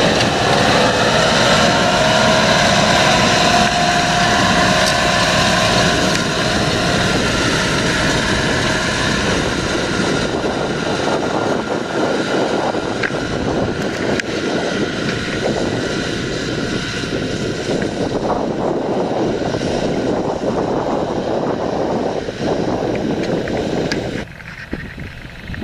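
John Deere 7230R tractor's six-cylinder diesel engine running steadily under load as it pulls a seed drill, with the drill's discs working the soil. A steady whine sits over the engine in the first few seconds, and the sound drops suddenly near the end.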